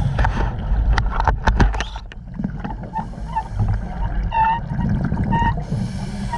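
Scuba diver breathing through a regulator underwater: a bubbling exhale with clicks in the first two seconds, two short squeaky tones about four and five seconds in, and a hissing inhale near the end.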